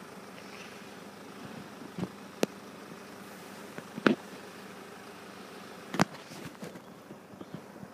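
Steady low hum of road traffic and idling vehicles at a closed level crossing, with a few sharp knocks; the loudest come about four and six seconds in.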